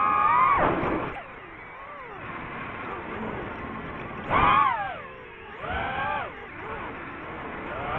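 DJI FPV drone's motors and propellers whining, several close pitches that rise and fall together with the throttle. Loud at first, dropping away after about a second, then surging again at about four and a half seconds, around six seconds and near the end.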